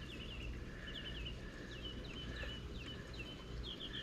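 Bird song: short chirping phrases repeated about twice a second, running into a quicker series of chirps near the end, over a steady low rumble.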